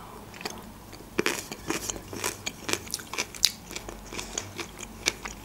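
A person chewing a mouthful of food close to a microphone, with irregular soft mouth clicks and smacks.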